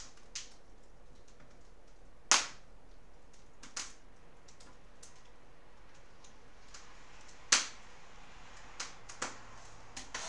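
Graphite pencil hatching on paper: scattered sharp ticks and taps as the point strikes the sheet, two of them louder, about two seconds in and again past seven seconds.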